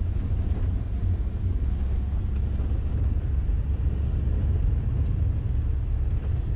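Steady low rumble of a moving van heard from inside its cabin: engine and road noise.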